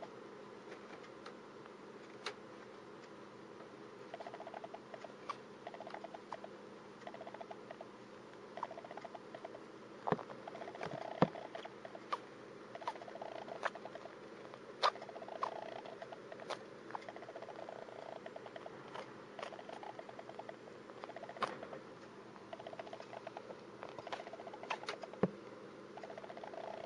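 A hamster's tiny sneezes: about a dozen short, sharp sniffs scattered irregularly, over stretches of soft rapid ticking that come and go.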